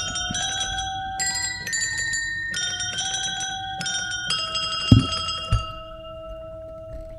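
A slow melody of bell-like chime notes, struck one after another, each ringing on, the last one fading away. Two dull knocks come about five seconds in.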